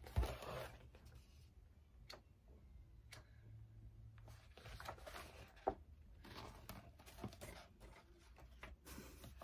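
Faint handling of paper cross-stitch pattern sheets: soft rustling with a few scattered light taps and clicks over a low room hum.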